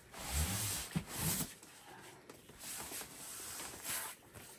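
A large taped cardboard box being lifted from a stack and set on a table, with scraping and rustling of cardboard in several bursts.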